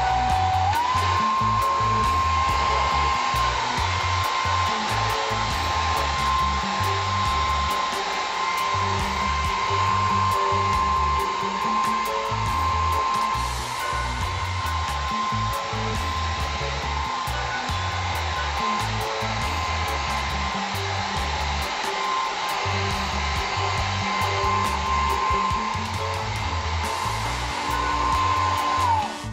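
Handheld Ikon hair dryer running steadily, a rushing blow of air with a motor whine on top. The whine steps up in pitch about a second in and falls away as the dryer is switched off near the end.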